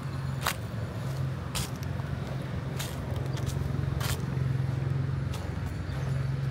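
Street traffic: a steady low vehicle engine hum, with a sharp light tap about once a second.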